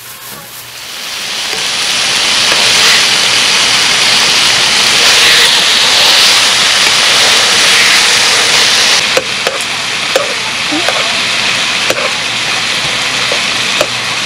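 Sliced meat frying loudly in a hot pan: the sizzle swells over the first two seconds as the meat goes in and stays strong, easing slightly about nine seconds in, with a few light clicks of utensils.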